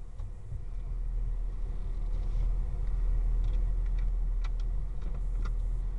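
Car's engine running as the car rolls slowly forward, a steady low rumble that grows a little louder over the first couple of seconds. A few sharp ticks come near the end.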